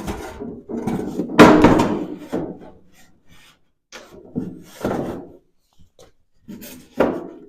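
A 3/4-inch plywood shelf being worked into a 14-gauge sheet-metal stand from below: a series of wooden knocks and scrapes against the steel, the loudest about a second and a half in.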